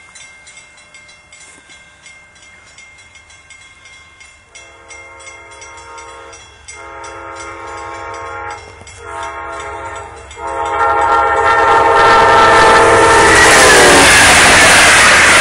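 Amtrak Genesis diesel locomotive's air horn blowing the grade-crossing signal of long, long, short, long blasts as the train approaches. The last blast drops in pitch as the locomotive passes close by, and the loud rush of the passing train and its wheels takes over.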